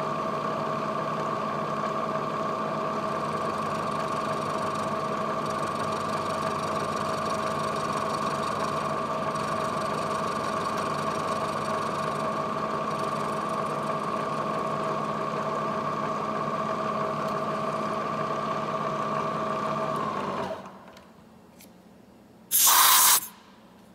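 A milling machine runs with a steady two-tone whine as its end mill cuts brass countersunk screw ends flush with an aluminum plate. The machine shuts off about 20 seconds in. Near the end there is a short, loud burst of hissing noise.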